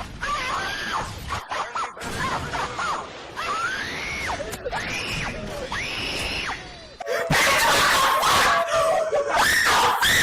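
Repeated high-pitched screams, each rising and then falling. About seven seconds in, a louder, harsher stretch of screaming and noise takes over.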